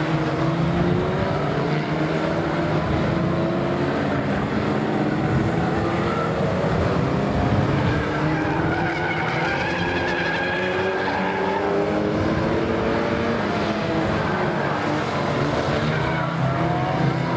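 A pack of small saloon race cars running hard around a short oval. Several engines overlap, their pitch rising and falling as the cars accelerate, lift off for the bends and pass by.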